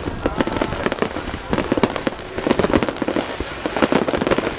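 Finale barrage of aerial fireworks shells bursting in rapid succession, many bangs overlapping with no gap between them.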